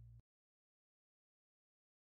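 Near silence. A low steady tone cuts off abruptly just after the start, leaving dead silence.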